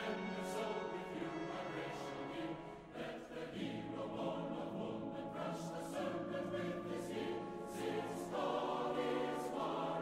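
Background choral music: voices singing long held chords, which shift to new chords twice.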